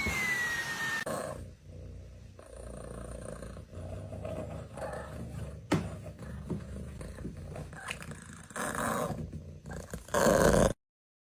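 An animal growling in uneven short bouts, louder towards the end, then cutting off suddenly.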